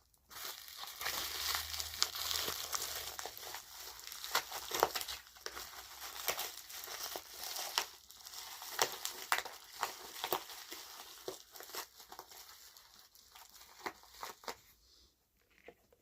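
Packaging crinkling and rustling as a mailed parcel is unwrapped by hand, with many irregular sharp crackles; it thins out near the end.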